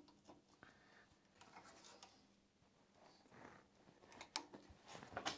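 Near silence with faint scraping and a few sharp clicks near the end: hands and tools working on a small engine's carburetor as it is taken off.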